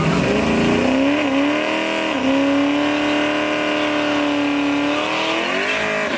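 Naturally aspirated Chevrolet Camaro SS 6.2-litre V8 revving hard during a burnout, rear tyres spinning on the wet starting line. The revs climb over the first two seconds, hold steady and high, climb once more near the end and then cut off sharply.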